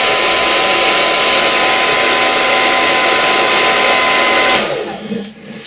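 Handheld hairdryer blowing, a steady rush of air with a thin whine under it, switched off about four and a half seconds in and spinning down.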